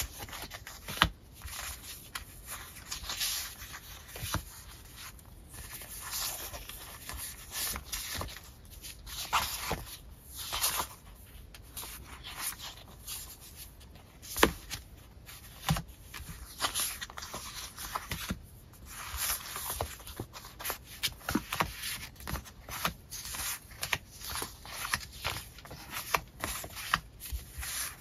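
A stack of paper sticker sheets being handled and sorted: the sheets rustle and slide against each other as they are fanned out and laid down, with frequent sharp taps and a few louder ones.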